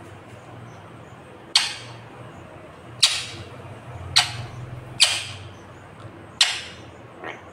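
Five short, sharp sounds from an Indian ringneck parakeet as it works its beak at a round sticker on a metal cupboard door, coming irregularly about a second apart.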